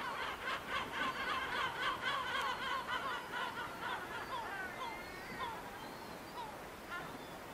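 Gulls calling: a fast run of short calls, about four a second, through the first half, thinning to scattered calls later.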